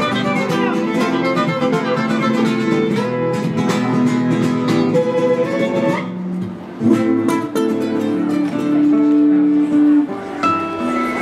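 Two acoustic guitars played live: quick plucked melody lines over strummed chords, easing off briefly about six seconds in before carrying on with longer held notes.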